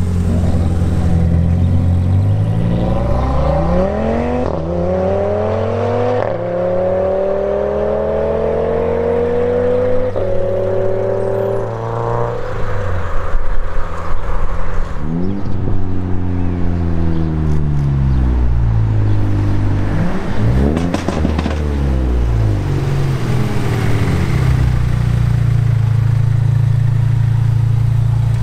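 High-performance car engines idling and revving hard as cars accelerate away, the pitch climbing and dropping back at each gear change. A run of loud, sharp bangs comes around halfway.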